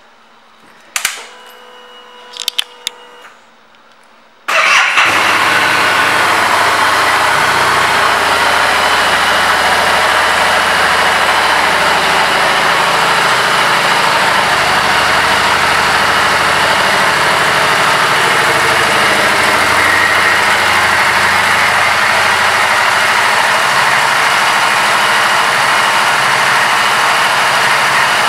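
A Harley-Davidson Street Rod 750's liquid-cooled V-twin is started about four and a half seconds in, after a few quiet clicks. It then idles steadily.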